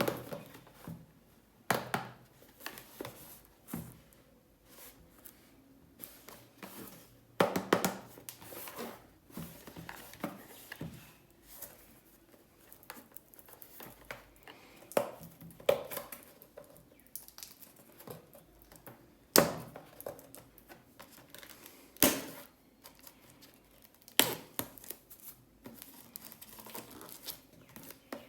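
Candy and snack packaging being handled for unboxing: plastic wrappers crinkling and rustling in irregular bursts, with sharp crackles and clicks.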